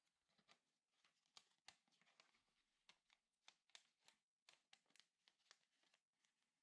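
Very faint crinkling and ticking of origami paper being folded and creased by hand, a quick irregular run of soft crackles.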